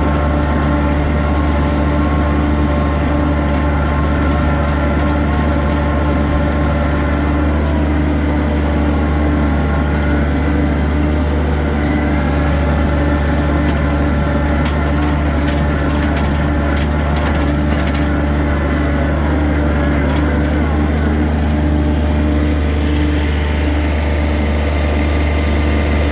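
A vehicle's engine running steadily as it is driven, with a spell of rattling clicks about fifteen to twenty seconds in.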